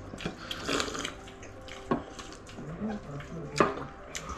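Table sounds of people eating and drinking: a drink swallowed from a glass, then a few sharp knocks of glassware or plates on a wooden table. The loudest knock comes about three and a half seconds in.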